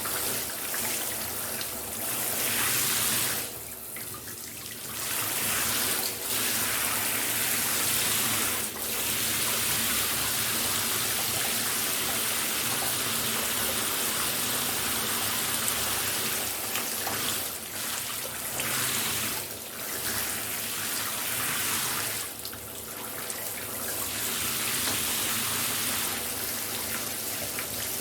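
Shower running: a steady spray of water hissing down, dipping briefly in level a few times.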